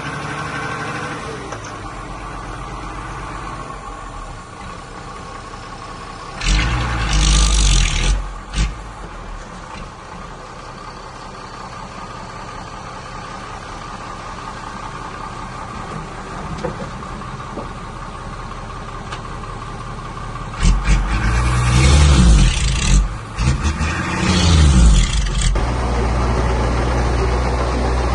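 Heavy diesel earthmoving machinery running steadily, with two louder surges of engine and noise: a short one about six seconds in and a longer one of about five seconds later on.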